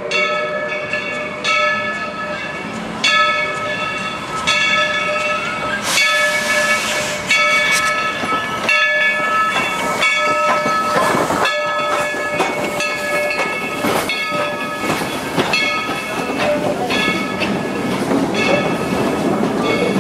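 Dollywood's Cinderella steam locomotive, No. 70, ringing its bell steadily, about one stroke every second and a half, as it passes. Near the end the bell fades under the rumble and rail clatter of the passenger cars rolling by.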